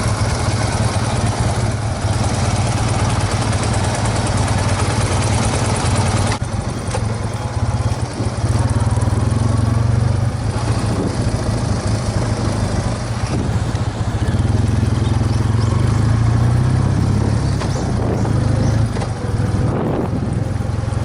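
Vintage BMW flat-twin (boxer) motorcycle engine running under way, with a steady low drone and a wash of wind and road noise; the upper range changes abruptly about six seconds in.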